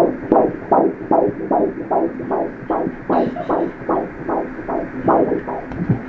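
Fetal heartbeat played through the ultrasound machine's Doppler speaker: an even, rhythmic pulse at about two and a half beats a second, roughly 160 a minute, within the normal range for a 14-week fetus.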